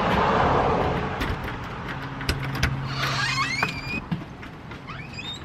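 Footsteps on a wooden porch and a house door being opened, with several sharp clicks and knocks. A rushing noise fills the first second, and a short high squeal rises about three seconds in.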